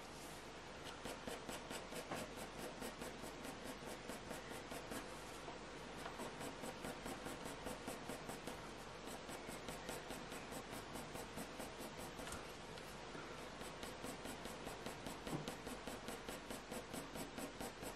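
HB graphite pencil scratching across hot-pressed watercolour paper in quick short strokes, about five a second with brief pauses, building up fluffy fur texture.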